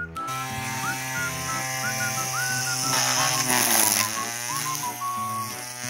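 Background music: a whistle-like melody with scooping notes over steady held chords, with a high hiss beneath that swells about three to four seconds in.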